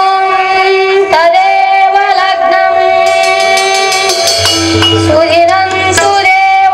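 A young singer holding long, drawn-out notes through a microphone and PA, over instrumental accompaniment.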